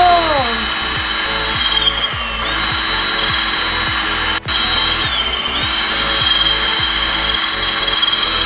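Electric drill turning a diamond hole-saw bit that grinds into a wet ceramic pot, with a steady high whine; it drops out briefly about four seconds in.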